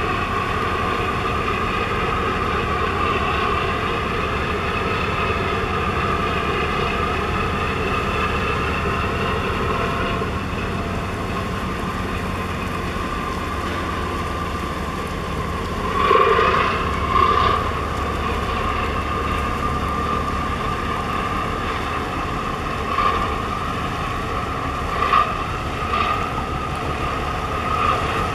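Harbour tugboat's diesel engines running steadily, a high whine with overtones over a low drone. A few short louder bursts come through in the second half.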